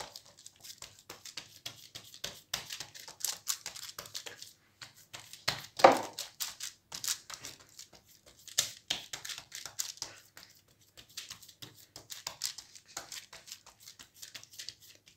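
Baking paper crinkling and rustling under hands pressing and stretching a sheet of dough flat, in many small irregular crackles, with a louder one about six seconds in.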